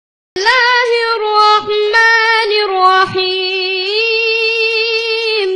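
A high voice chanting Quranic recitation in Arabic: a melodic, ornamented opening phrase that ends on one long held note.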